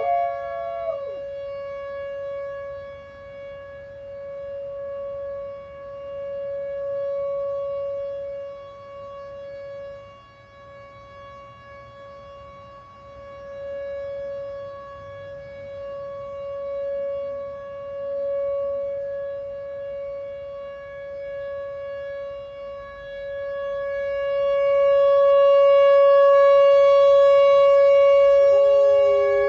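Outdoor tornado warning siren sounding one steady tone that swells and fades every several seconds, loudest near the end. A dog howls along with it briefly at the start and again near the end.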